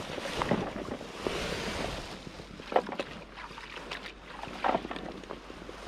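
River water splashing: a rushing wash for the first couple of seconds, then a few short, sharp splashes.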